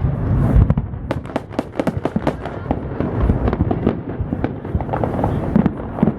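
Fireworks finale: a dense, rapid barrage of crackling and popping shell bursts over deep, continuous booms.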